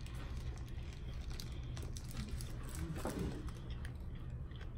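A person chewing a mouthful of grilled chicken sandwich on a soft bun: faint chewing with small scattered clicks over a low steady hum, and a brief murmur about three seconds in.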